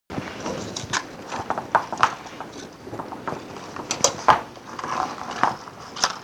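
Irregular sharp clicks and knocks of hands handling and connecting wires and clips on a workbench, over a low rustle of handling noise; the loudest knock comes about four seconds in.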